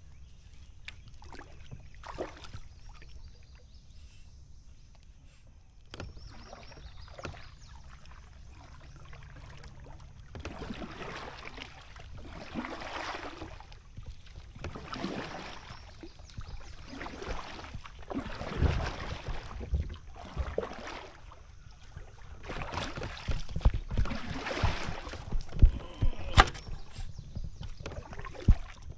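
Kayak paddling: a double-bladed paddle dipping and pulling through the water. The strokes begin about ten seconds in as splashy swishes roughly every two seconds, with a few sharp knocks near the end.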